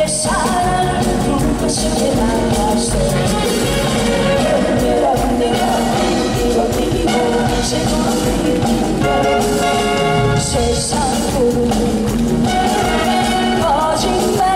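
A woman singing a Korean trot song into a microphone over loud backing music, the melody running on without a break.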